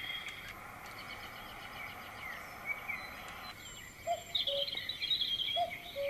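Roffie N600 white noise machine playing its bird-sound preset through its small built-in speaker: recorded birds chirping in short calls over a steady hiss of background noise.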